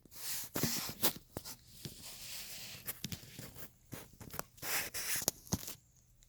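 Handling noise as the camera is set down: rustling and scraping with a series of sharp knocks, stopping shortly before the end.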